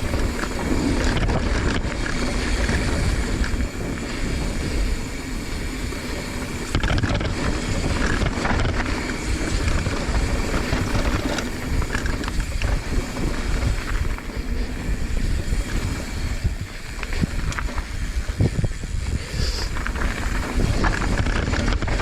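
Wind buffeting a helmet- or body-mounted GoPro's microphone as a mountain bike rolls fast down a jump line, with steady tyre rumble and frequent knocks and rattles from the bike over bumps and landings.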